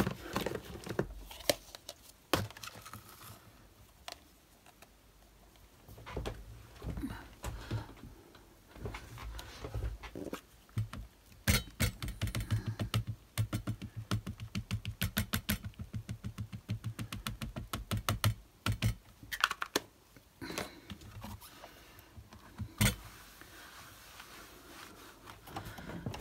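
Scattered clicks and knocks of a stamping platform and craft supplies, with a run of quick light taps, about six a second, for several seconds in the middle: an ink pad being tapped onto a clear stamp to ink it.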